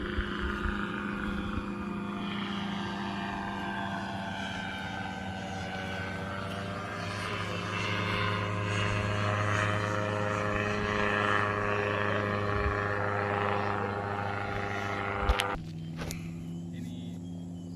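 Light aircraft engine and propeller running, its pitch gliding down and then back up as it passes, over a steady low engine hum. About 15 seconds in the sound changes abruptly to a quieter, steadier drone.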